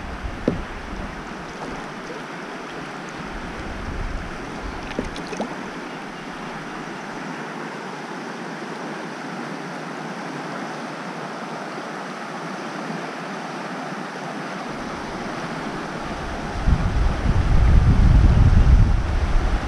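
Steady rushing of river water over a shallow riffle ahead of the kayak. Near the end a louder low rumble of wind buffeting the microphone comes in.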